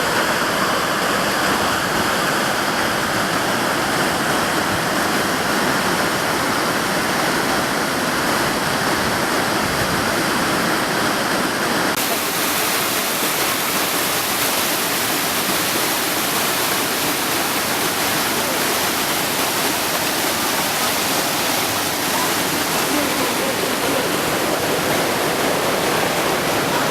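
Waterfall: a loud, steady rush of falling water. About twelve seconds in, the sound suddenly turns brighter and hissier.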